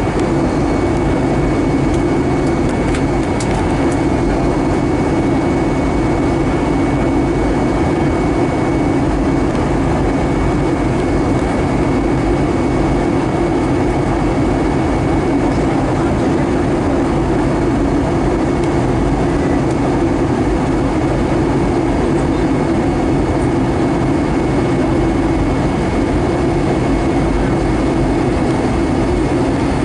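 Airbus A320 cabin noise heard from a window seat by the wing during descent: the steady drone of the jet engines and airflow, with a faint steady high whine above it.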